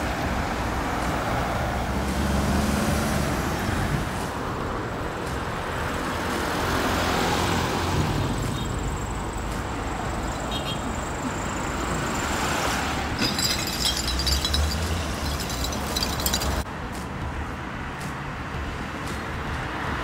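Street traffic: cars and other road vehicles passing with a steady rumble of engines and tyres.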